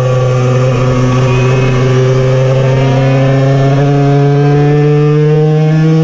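Puch Cobra 50cc air-cooled, piston-port two-stroke engine running hard at high revs, heard from on the bike; its pitch climbs steadily as it accelerates out of a bend.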